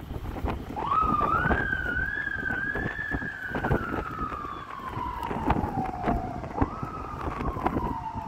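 A siren wailing over wind noise on the microphone. The tone rises quickly about a second in and peaks, then slides slowly down for several seconds. It jumps up again near the end and falls slowly once more.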